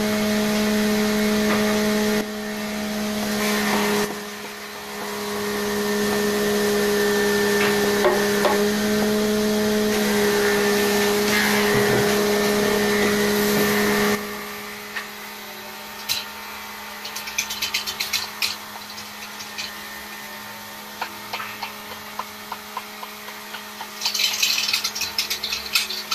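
Electric wood lathe humming steadily as it spins a large block of wood, with loud cutting noise from the tool roughing the square blank down to a cylinder. About fourteen seconds in the cutting stops and the lathe runs on more quietly, with scattered clicks and a short burst of scraping near the end.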